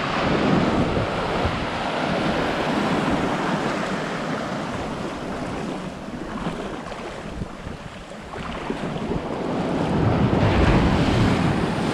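Shallow ocean surf washing up the beach in a steady hiss of foam and water, easing slightly after the middle and building again near the end, with wind buffeting the microphone.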